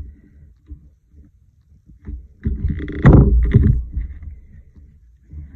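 A plastic paper punch pressed down on the corner of a thick card: a cluster of heavy clunks and knocks against the desk, loudest about three seconds in, with lighter handling knocks around it.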